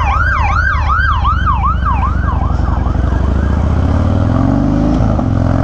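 Police siren yelping in rapid rise-and-fall sweeps, about four a second, fading out after about two seconds, over a Harley-Davidson Dyna V-twin running steadily. The engine note climbs about four seconds in, then dips briefly.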